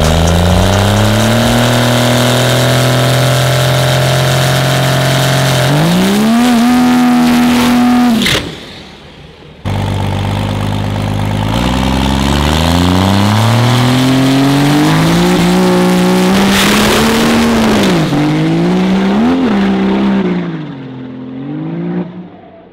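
Turbocharged rail dragster's engine revving up and held high at the start line. After a short break it launches and pulls down the drag strip, its pitch climbing steadily, wavering up and down near the end, then fading into the distance.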